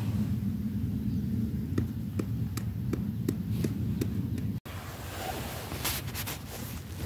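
Wind buffeting the microphone, with a string of light clicks in the middle and a few more about six seconds in as a hand picks through loose shale fragments.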